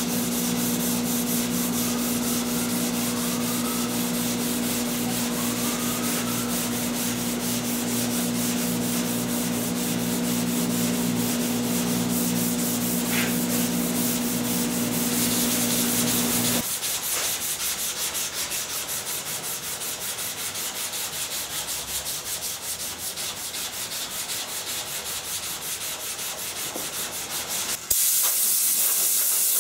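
Hand block sanding of primer on a car hood with 320-grit paper, quick repeated back-and-forth strokes. A steady hum runs underneath and stops abruptly about two-thirds of the way through, and near the end the sound changes suddenly to a steady hiss.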